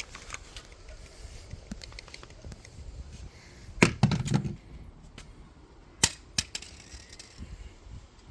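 Hard knocks and cracks of a smoke alarm being smashed: a loud burst of several blows about four seconds in, then three single sharp cracks.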